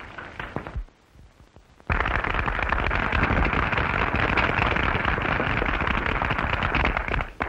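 Crowd applauding: a dense, even patter of many hands clapping that starts abruptly about two seconds in, holds steady for about five seconds and stops suddenly, after a short orchestral ending fades out.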